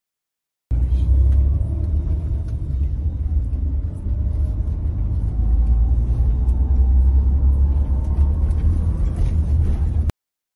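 Coach bus engine and road rumble heard from inside the passenger cabin, a heavy steady low drone with a faint whine rising in pitch as the bus gathers speed. It starts about a second in and cuts off suddenly near the end.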